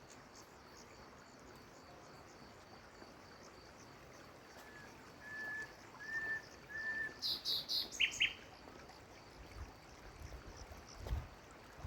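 Birds calling over a steady river-like hiss: a run of four short, even whistled notes, then a quick burst of high chirps followed by two sharper notes. A few low thumps come near the end.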